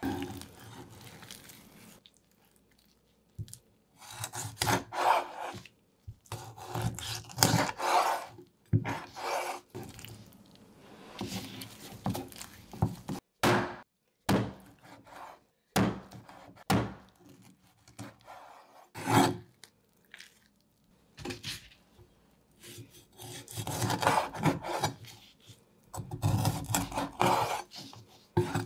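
Cleaver cutting raw bone-in chicken into small pieces on a wooden cutting board: irregular rasping, sawing strokes through skin and bone, with a few sharp chops and knocks of the blade on the board.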